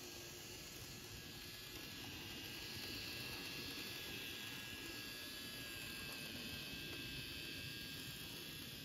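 Model railway diesel locomotive (a DE15 with Russell snowplough) running along the track, its small electric motor and wheels giving a faint, steady whirring hiss with a thin high whine that swells a little about three seconds in.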